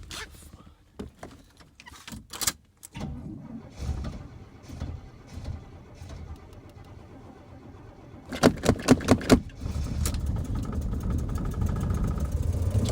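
1971 Oldsmobile Cutlass S engine on a hard cold start: scattered clicks, then a burst of sharp pops as it catches about eight seconds in, after which it keeps running with a steady low rumble.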